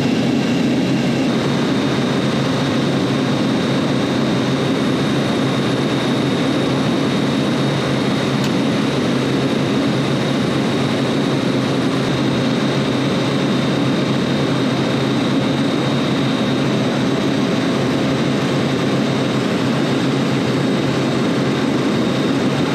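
Steady drone of refrigeration rack compressors and their fans running, with a thin high whine over it.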